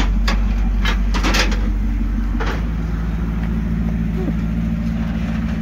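Maserati GranTurismo MC's V8 idling steadily after a cold start; about two and a half seconds in the idle drops and settles lower. A few short knocks come in the first second and a half.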